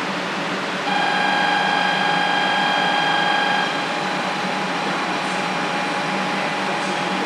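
Station platform departure bell ringing before a Shinkansen departure: a rapid, trilled electric ring at one steady pitch. It starts about a second in, is loud for about three seconds, then goes on more faintly, over the steady hiss and hum of the waiting 500 series train.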